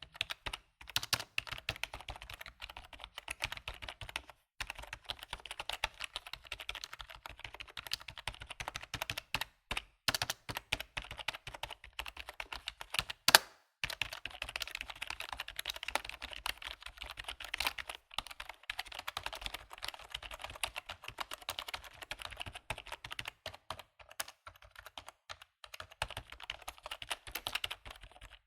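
Typing on a computer keyboard: a fast, continuous run of key clicks with a few short pauses, and one louder keystroke about halfway through.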